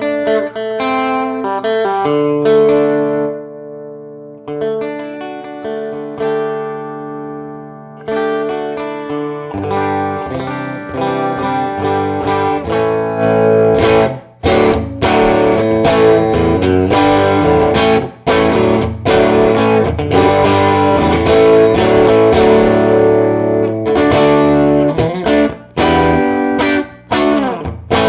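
Electric guitar with a single P90-style pickup played through the first channel of a 30-watt hand-wired all-tube amplifier with 6L6 power tubes and a 12-inch speaker. Slow ringing chords for about the first ten seconds, then fuller strummed chords, cut off briefly several times.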